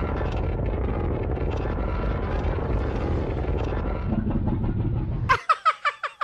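Godzilla's atomic-breath sound effect: a steady, dense rumbling rush that cuts off about five seconds in. It is followed by a quick run of short, high-pitched chirping notes, about eight of them.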